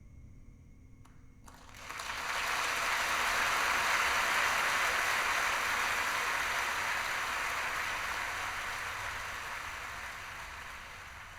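Audience applause at the end of a live recording, rising quickly about two seconds in, holding steady, then slowly dying away near the end.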